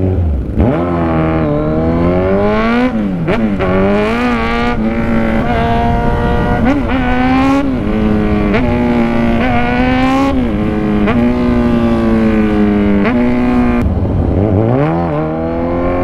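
Large sport motorcycle engine accelerating through the gears, heard from the rider's seat: the pitch climbs, drops back at each gear change, then holds at steady revs before easing off and picking up again near the end.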